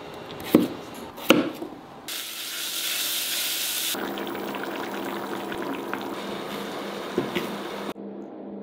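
Two sharp knocks of a kitchen knife cutting through potato onto a cutting board, then about two seconds of loud frying sizzle. After that comes a pot of stew simmering, with a few small clinks of a ladle.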